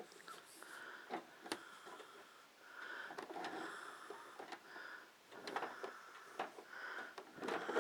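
Cables and plastic parts being handled and moved: scattered light clicks and knocks, with soft breathing between them.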